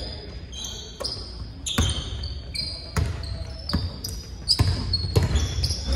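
Basketball dribbled on a hardwood gym floor, bouncing irregularly about once a second, with short high squeaks of sneakers on the court.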